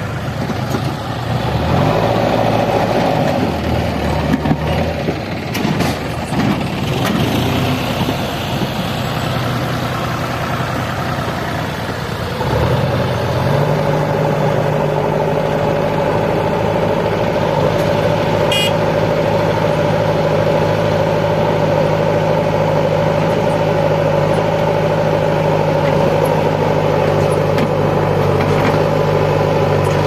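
JCB 3DX backhoe loader's diesel engine running, uneven for the first twelve seconds or so, then settling into a stronger, steady note from about twelve seconds in.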